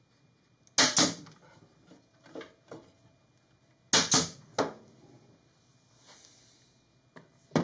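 Pneumatic nailer firing into a plywood panel: sharp pops in two quick groups, a pair about a second in and two or three more about four seconds in, with fainter clicks between.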